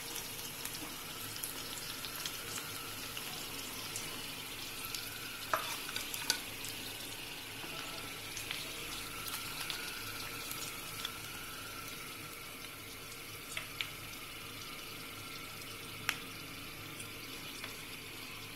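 Hot ghee sizzling steadily in a kadhai as fried cutlets are lifted out with a wire skimmer. A few sharp metallic clicks, about a third of the way in and again later, come from the skimmer knocking against the pan.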